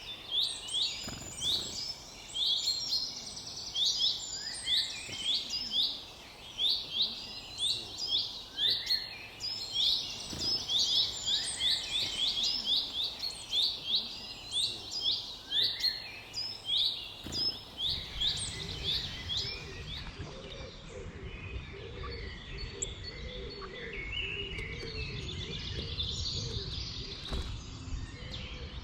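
Woodland birds calling, with rapid, densely repeated high chirps for about the first two-thirds. After that the chirping thins and a low rumble comes in.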